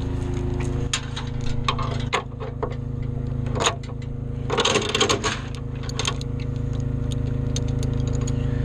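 Skid loader's diesel engine running steadily, with scattered metallic clanks and clicks and a burst of rattling about five seconds in as a grain auger is hooked onto the loader.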